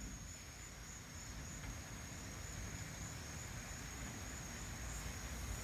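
Faint, steady chorus of night insects, one constant high-pitched note, over a low rumble.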